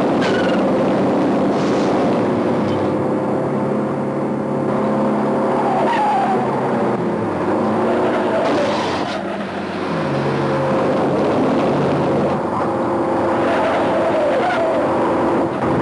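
Renault 5 and Ford Transit van engines running hard at high revs during a chase, with tyres squealing several times through the bends.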